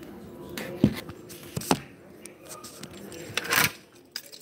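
Handling noise from a phone held in the hand: a few sharp knocks and rustles as it is moved about, the loudest knock just under a second in.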